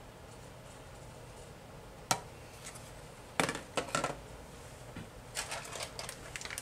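Kitchen items handled on a countertop: a single sharp clack about two seconds in, a quick cluster of clatters a second and a half later, then lighter rustling near the end.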